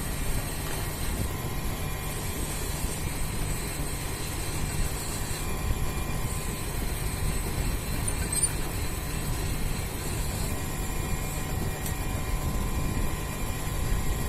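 Metal lathe running, turning a steel ring in its chuck while the tool cuts it: a steady low machine hum with a faint high whine from the cut that comes and goes.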